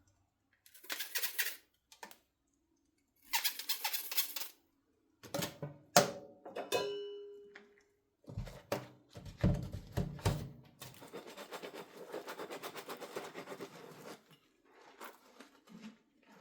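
Dishes being washed by hand at a sink: short bursts of scrubbing and rinsing, then a sharp clink about six seconds in that rings briefly as it dies away. A few dull knocks follow, then a steadier stretch of scrubbing noise.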